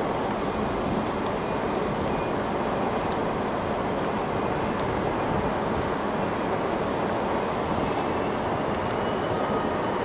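Wind blowing across the microphone: a steady rushing noise with a low rumble that does not let up.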